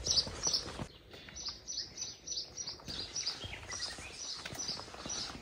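A small bird chirping over and over: a quick series of short high chirps, several a second, with a soft rustle of outdoor background beneath.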